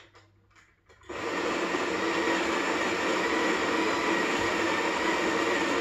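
Electric coffee grinder running, a steady, loud grinding whir that starts sharply about a second in, after a few soft clicks.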